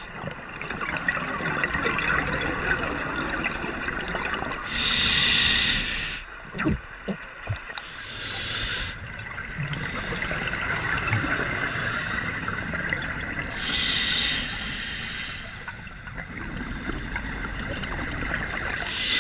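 Scuba diver breathing through a regulator underwater: a loud rush of exhaled bubbles comes twice, about nine seconds apart, over a steady bubbling hiss.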